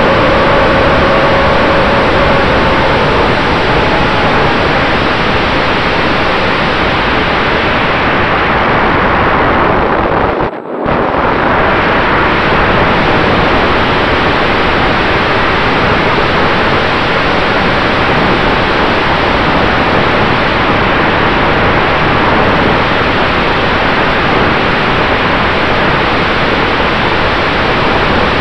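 Wind rushing loudly over the onboard camera's microphone as an RC warbird flies, over the faint steady whine of its Cobra C-2820/12 brushless electric motor and propeller; in the first few seconds the motor's tone falls in pitch as the throttle comes back. The sound cuts out for a moment about ten seconds in.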